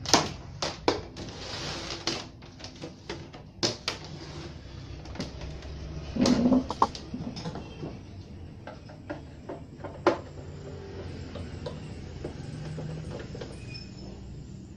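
Clicks and knocks of a plastic CRT television cabinet being handled and turned around on a wooden bench, with a heavier, longer knock about six seconds in and another sharp one near ten seconds.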